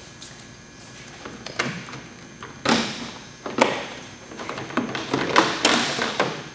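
Plastic windshield cowl cover of a VW Mk4 Golf/Jetta being lifted and pulled out by hand, rattling and scraping in a run of short bursts, loudest a little before halfway and again near the end.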